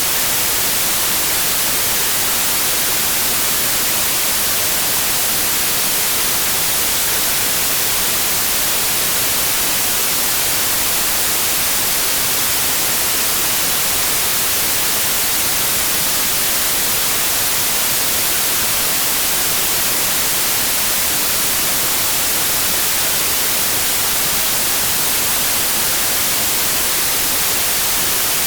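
Steady white noise: an even, unbroken hiss spread over all pitches, brightest in the highs, with no hum, tone or change.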